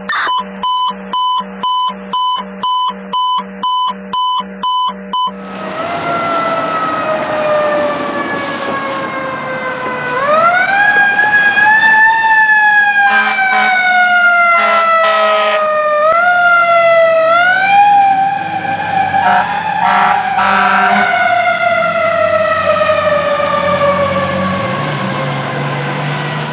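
Over the opening logo, about ten evenly spaced electronic beeps. Then a fire engine approaches on a response. Its siren winds up sharply about ten seconds in and falls away slowly, is wound up twice more, and short horn blasts sound in between. A low engine rumble runs underneath.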